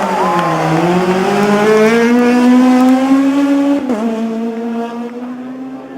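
Rally car engine accelerating hard, its pitch climbing steadily before a quick upshift about four seconds in, then pulling on in the next gear as it fades away.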